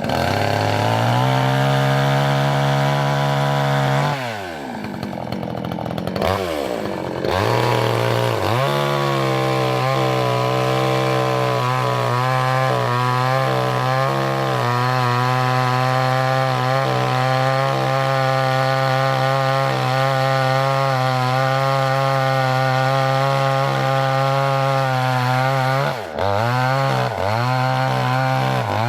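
Chainsaw engine running at high revs, its pitch dropping and climbing back again about four seconds in and once more near the end.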